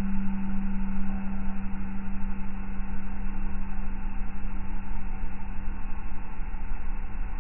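Slowed-down running noise inside an electric regional train: a steady low rumble with a constant deep hum tone over it.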